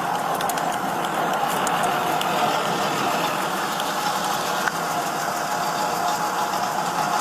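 Vehicle engine idling steadily, a continuous hum with a few faint ticks.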